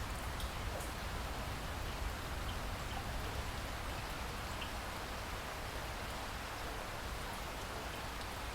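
Steady rain falling in a rainforest, an even hiss with scattered individual drops ticking.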